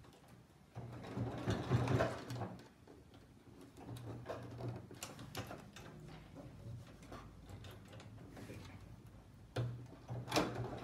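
Domestic electric sewing machine stitching through thick denim in three short stop-start bursts: about a second in, around four seconds, and near the end. Between the bursts, quieter clicks and ticks of the machine's mechanism are heard as the fabric is hand-guided.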